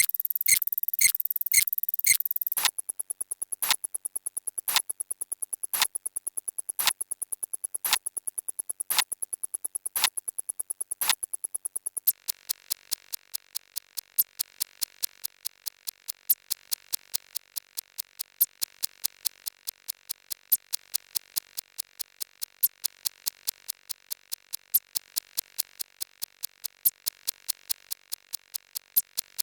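Counting sound effects sped up: evenly spaced sharp clicks. There are about two a second at first, then a louder click about once a second over rapid fine ticking, and from about twelve seconds in, quicker clicks about three or four a second over a faint steady hiss.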